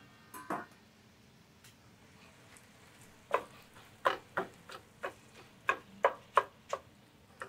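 A utensil stirring crumbled Italian sausage in a stainless steel skillet: a couple of light clicks at the start, then from about three seconds in a run of sharp clicks and scrapes against the pan, two or three a second.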